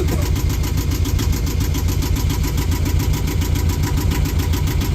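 Yanmar marine diesel engine idling steadily, freshly started and warming up at tick-over, with an even rapid pulse.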